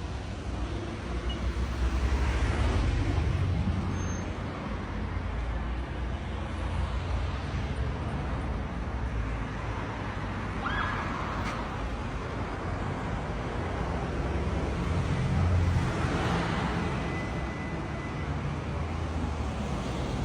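Road traffic noise: a steady low rumble with vehicles passing twice, each swelling and fading over a couple of seconds.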